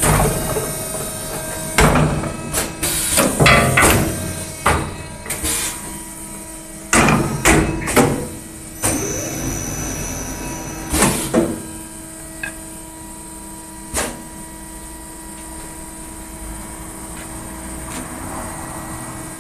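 MC2036B automatic wood lathe running with a steady hum while its form tools turn a wooden bat or handle blank. Irregular loud knocks and clatters come through the first half, then it runs more evenly and quieter.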